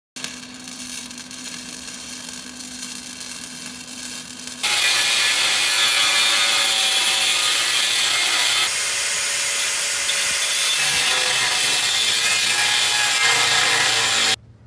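Saw cutting through wood, a steady rasping noise that gets much louder about a third of the way in and cuts off abruptly near the end.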